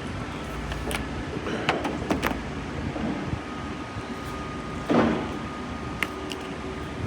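Plastic windshield molding on a car being pried and pulled loose: a few sharp clicks and one short, louder scrape about five seconds in, over a steady low hum.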